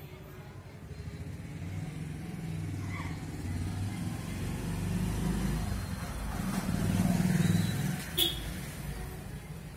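A motor vehicle passing: its low engine rumble builds over several seconds, is loudest about seven seconds in, then fades away. A single sharp click comes just after the peak.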